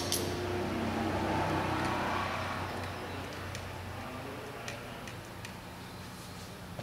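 A few light metallic ticks from a Torx screwdriver working the rotor's alignment screw out of the wheel hub, over a steady low hum.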